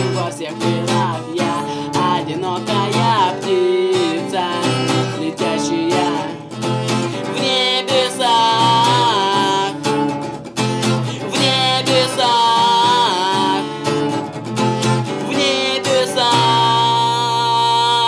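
Male voice singing over a strummed acoustic guitar. The voice holds three long, wavering notes: about a third of the way in, near the middle and near the end.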